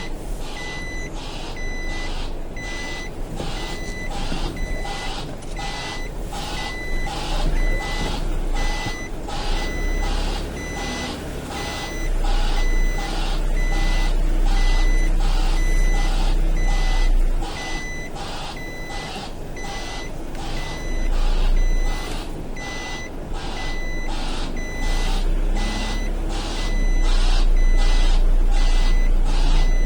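Recycling lorry's reversing alarm beeping at an even pace over the lorry's engine running. The engine grows louder near the end.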